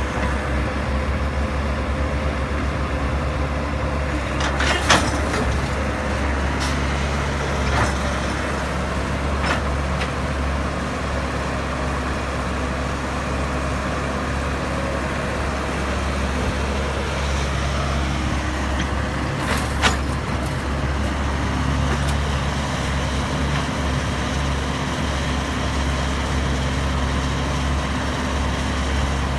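Diesel engine of a Cat E110B crawler excavator running steadily under load while it digs and swings. A few sharp metal clanks come from the bucket and arm, the loudest about five seconds in and again near twenty seconds.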